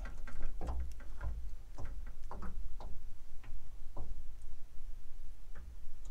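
Scattered light clicks and taps, irregular, about one or two a second, over a steady low rumble.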